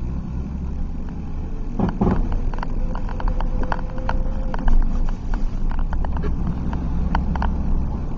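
Cab noise of a 2005 Chevy Silverado 4x4 pickup on the move: a steady low road and drivetrain rumble with irregular clicks and knocks, a stronger burst of knocking about two seconds in.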